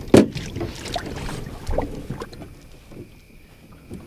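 A largemouth bass being landed into a small boat: a sharp knock against the boat near the start, then irregular knocking and rustling as the fish and gear are handled.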